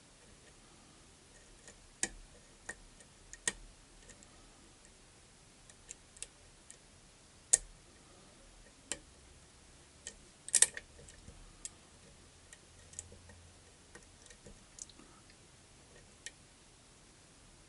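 Irregular sharp clicks of a lock pick working the pins of a challenge lock under tension, snapping and popping at uneven gaps, with a quick burst of louder clicks about halfway through.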